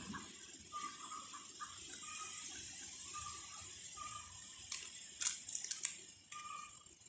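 Chickens clucking in short repeated notes every half second or so over a steady high hiss, with a quick run of sharp clicks about five seconds in.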